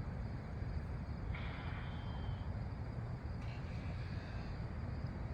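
Wind buffeting the microphone outdoors before a rainstorm: a steady low rumble, with a faint higher sound twice.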